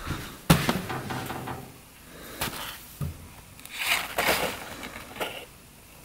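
Handling noise in a small shop: a few sharp knocks and clatters, with a short rustle about four seconds in, as the engine's oily dipstick is carried over and laid on a shop towel.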